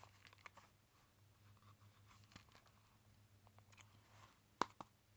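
Faint handling noises from a slipjoint pocketknife and its belt sheath: scattered small clicks and rustles, with two sharper clicks near the end, over a faint low hum.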